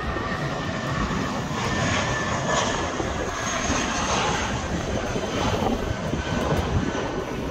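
An airliner taking off and climbing out, its engines at takeoff power: a steady rush of engine noise with a faint high whine.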